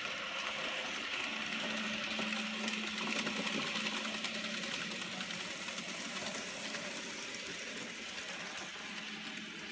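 N scale model steam locomotive pulling coaches along the track: its small electric motor whirring with a steady hum and the wheels running on the rails. It grows louder over the first few seconds as the train comes close, then eases off.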